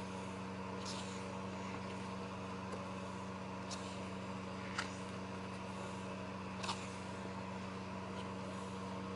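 Pages of a softcover booklet being turned, heard as a few brief paper swishes, the sharpest about five and seven seconds in, over a steady low hum.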